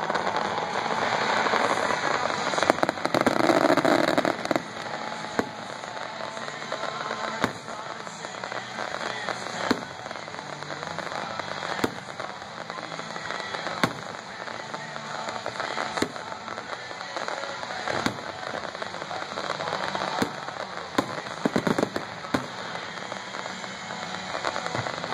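Fireworks display: aerial shells bursting with sharp bangs roughly every two seconds over continuous crackling, with a quick run of several bangs near the end.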